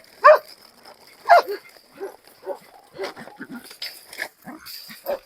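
Dogs barking: two loud barks in the first second and a half, then quieter, scattered barks.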